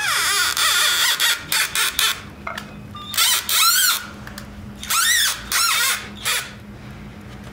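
Cordless drill working into MDF panels in several short bursts, its motor whine rising and falling in pitch as the trigger is squeezed and let go.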